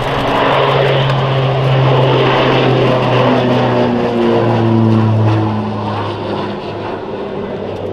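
Twin Pratt & Whitney PT6A turboprops and propellers of a Hawker Beechcraft King Air 350CER at take-off power, a steady propeller drone climbing away. Its pitch drops as the aircraft passes, and it grows fainter over the last couple of seconds.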